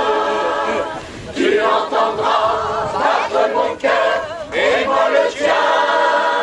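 Mixed choir of men's and women's voices singing together in held chords, with short breaks between phrases.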